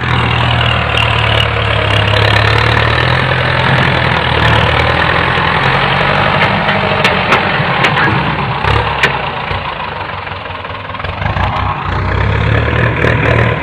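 A Ford farm tractor's engine running steadily, with a few sharp clicks in the middle; it eases off for a moment about ten seconds in, then picks up again.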